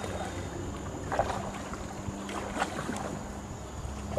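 Canoe paddle strokes splashing in the water, a few short splashes, with wind buffeting the microphone.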